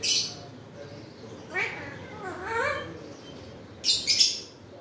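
Pet parrot vocalising: a wavering, speech-like call in the middle, and short harsh squawks at the start and about four seconds in.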